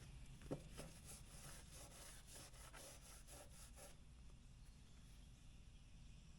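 Faint rubbing and light clicking of marine adhesive sealant being worked onto a wooden door jamb: a run of soft strokes for about four seconds, one slightly louder click about half a second in, then near silence.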